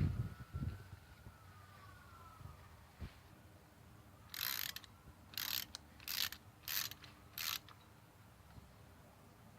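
Ratchet wrench clicking through five short back-strokes, about one every two-thirds of a second, after a few low knocks of handling at the start.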